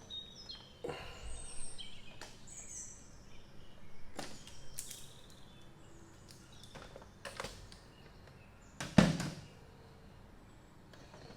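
Scattered clicks and knocks from handling the portable fan's telescopic neck while it is measured, with one louder thump about nine seconds in. Birds chirp faintly in the background, mostly in the first few seconds.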